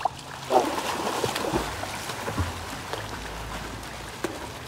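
Swimming-pool water splashing and sloshing around a swimmer in the water, with a short bit of voice about half a second in.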